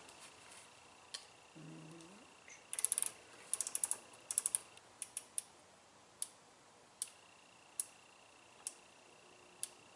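Clicks from a Maytag Centennial top-load washer's control panel being worked to enter diagnostic mode. Three quick runs of clicks come a few seconds in, then single clicks about a second apart.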